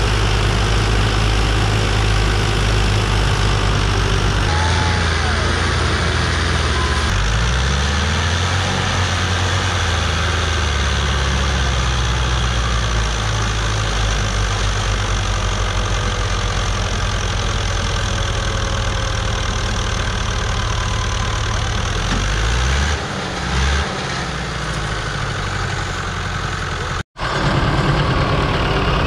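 Fiat tractor diesel engines running hard under heavy load while pulling a stuck, loaded trolley. The engine note shifts several times as the revs change, and the sound cuts out for an instant near the end.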